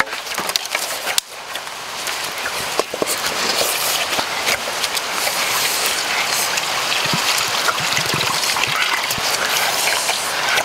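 Coconut water poured from freshly opened green coconuts into a metal wok, a steady splashing trickle that starts about a second in and carries on.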